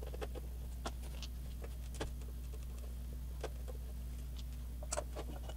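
Scattered faint clicks and taps of a small screwdriver working the tiny screws on a PS3 Phat's metal Blu-ray drive casing, with the drive being handled, over a steady low hum.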